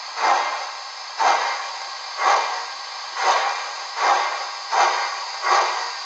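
Steam exhaust chuffs from the sound decoder of a Hornby DCC model of the LMS 'Duchess of Montrose', heard through the model's small speaker as it runs slowly along the track. Each chuff starts sharply and fades. They come about once a second, then quicken a little about halfway through as the loco picks up speed.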